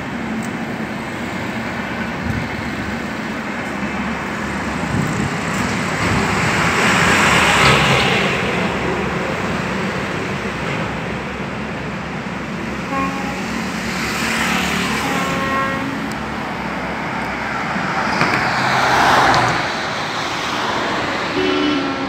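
Steady road traffic noise with vehicles swelling past three times: about a third of the way in, around two-thirds, and near the end. A horn sounds with a few short toots around the middle and once more at the very end.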